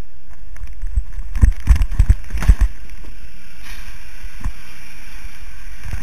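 A rider sliding down a wet inflatable water slide into foam, heard through a waterproof action-camera housing: a steady muffled rumble with a run of heavy thumps in the first half and one more a little later.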